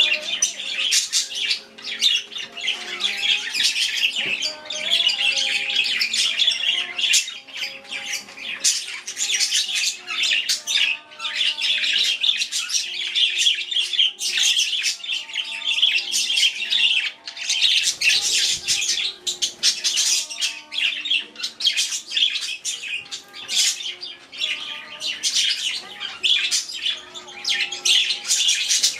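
Pet budgerigars, with a cockatiel among them, chattering and squawking continuously in a dense, rapid flock chatter of high chirps.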